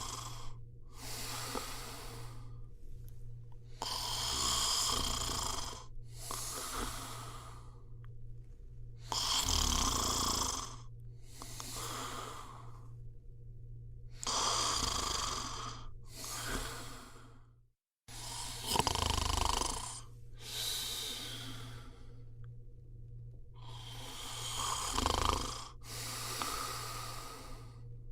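A person snoring steadily in sleep, each breath in and out heard as a pair of snores about every five seconds, over a steady low hum. The sound cuts out for an instant a little past halfway.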